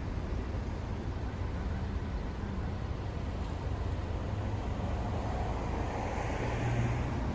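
Car driving along a road: a steady, low rumble of road and engine noise that swells slightly near the end.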